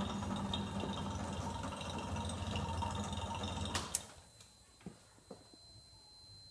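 Vacuum pump running steadily with a low hum, then switched off with a click a little under four seconds in. In the quiet that follows, a faint, steady high tone from the piezo buzzer inside the bell jar starts to come through as air returns to the cylinder.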